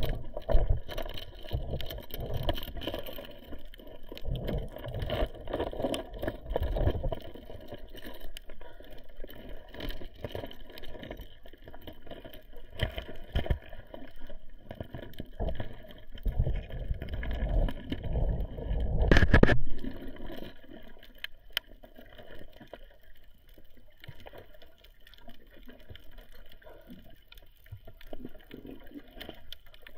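Muffled underwater noise picked up by a submerged camera: water rushing and bubbling against the housing in uneven surges, loudest about two-thirds of the way through.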